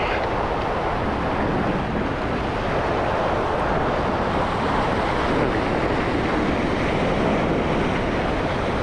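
Ocean surf washing over rocks, with wind buffeting the microphone: a steady rushing noise.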